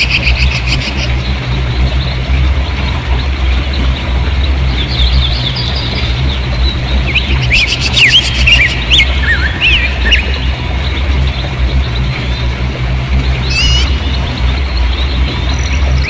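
River water rushing over rocks, a steady low rush, with many small birds chirping and twittering over it. The calls are busiest through the middle, with a quick trill a little before the end.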